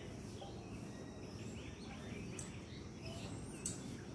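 Outdoor ambience: a steady low background rumble with faint, scattered bird chirps, and one brief sharp tick a little before the end.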